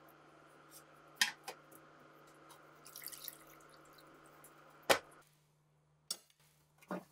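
Ultrasonic cleaner humming steadily while its stainless lid and wire basket clink, and water drips and splashes as the basket is lifted out of the bath. A sharp knock about five seconds in is the loudest sound, after which the hum stops; a couple of lighter knocks follow.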